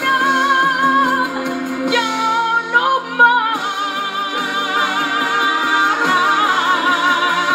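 Female singer holding long notes with vibrato over a full band backing, a live pop ballad performance played through a television speaker.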